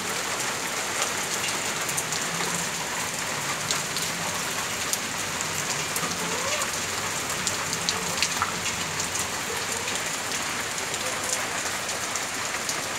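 Steady rain falling, an even hiss of rain with scattered louder single drops.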